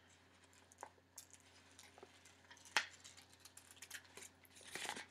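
Faint snips of scissors cutting paper, short and irregular, with one sharper snip just before the middle and a quick run of small cuts near the end.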